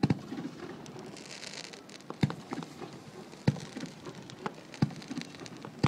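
Fireworks going off: five sharp bangs a little over a second apart, with dense crackling between them, thickest about a second in.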